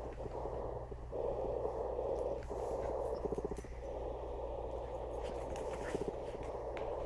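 A man making strange croaking, throaty noises in three long stretches with a fine rattling pulse, over a steady low hum.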